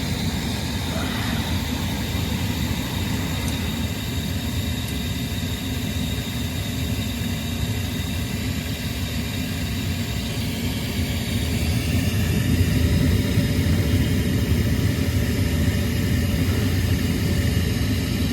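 Payne 80% gas furnace running in its start-up sequence, a steady mechanical hum of its motors that grows louder about twelve seconds in. The burners do not light because the hot surface igniter is cracked.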